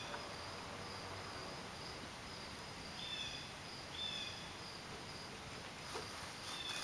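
Quiet outdoor background with a steady, faint, high insect trill and a few short chirps, two of them about three and four seconds in.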